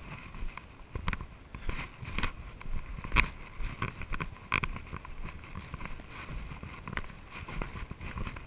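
Footsteps of a person walking on a dirt trail strewn with dry dead leaves, about two crunching steps a second, over a low rumble of the body-worn camera moving.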